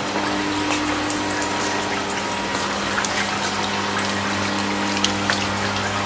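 Steady low machine hum with rushing water noise from the boiling and distillation vessels and pumps of an agarwood oil plant, with a few faint clicks.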